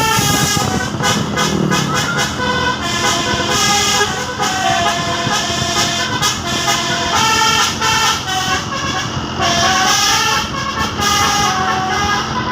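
Telolet bus horn playing a tune: a continuous run of pitched horn notes stepping up and down from one note to the next.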